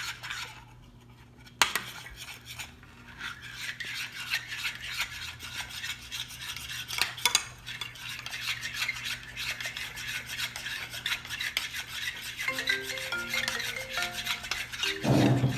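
A spoon stirring and scraping a thick mix of glue, shaving foam and pink food colouring in a bowl while slime is being made: a quick, continuous run of scrapes that starts with a sharp click about a second and a half in.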